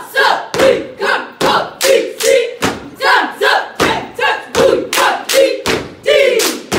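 A cheer squad shouting a cheer in unison over a steady beat of sharp hits, a little more than two a second.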